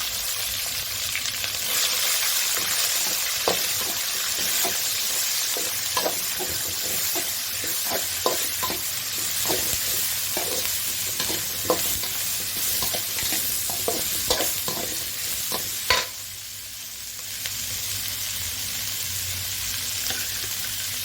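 Sliced onions and green chillies frying in hot oil, sizzling steadily while a spatula stirs them, with frequent scraping taps on the pan. There is one sharp knock about 16 seconds in, and the sizzle is softer after it.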